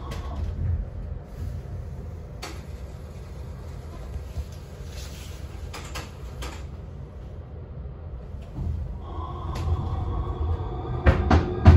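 Tram running slowly, a steady low rumble with a few sharp clunks about 2.5 and 6 seconds in.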